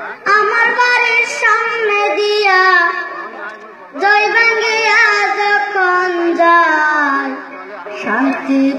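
A young boy singing a Bengali song into a microphone, amplified, in two long phrases with wavering held notes and a short break about four seconds in.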